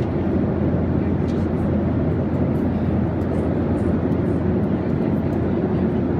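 Airliner cabin noise in flight: a steady low drone of the engines and rushing air, heard from inside the passenger cabin.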